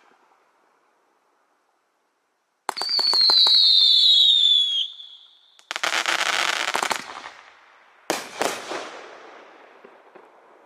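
A "Whistling Dixie" 500 g fireworks cake firing. After a quiet start, a shot goes up with a loud screaming whistle that falls slightly in pitch for about two seconds, with crackling. A noisy crackling burst follows, then two sharp bangs about half a second apart, and crackle fades away near the end.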